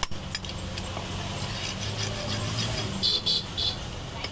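A butcher's cleaver chops once or twice into a wooden log block at the start. About three seconds in come a few short rasping scrapes as the meat pieces are scraped off the wooden block, over a low steady hum.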